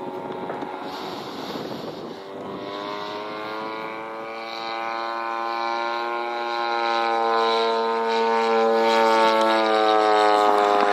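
Zenoah G-38 two-stroke gasoline engine of a Fly Baby RC model plane running steadily in flight, growing louder as the plane nears and passes overhead.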